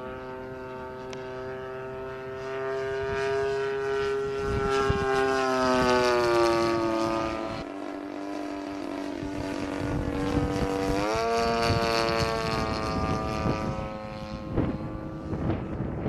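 DLE 30cc single-cylinder two-stroke petrol engine of a radio-controlled Focke-Wulf Fw 190A model in flight. It makes a steady propeller drone that slides down in pitch about six seconds in and climbs sharply again around eleven seconds. A low rumble builds near the end.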